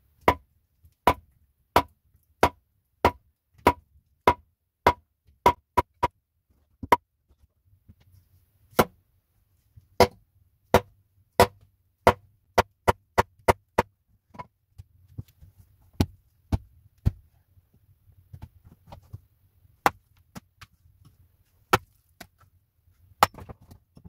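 Hatchet blows splitting wood on a wooden chopping stump: sharp, ringing chops, first in an even run about two-thirds of a second apart, then in irregular bunches with pauses.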